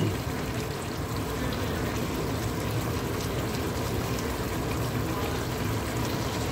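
Pot of mango talkari boiling steadily on high heat, the last of its cooking water bubbling off.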